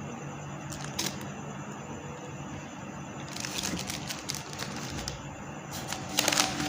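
Small items and packaging being handled: a sharp click about a second in, a spell of rustling and crinkling around the middle, and a louder clatter of handling near the end.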